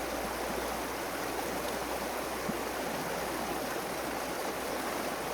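Running water of a stream, a steady rush.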